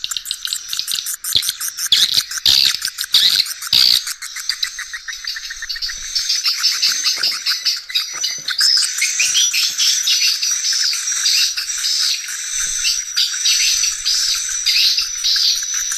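Swiftlets twittering: a dense, continuous stream of rapid high chirps and clicks, thin with no low end, growing busier from about six seconds in.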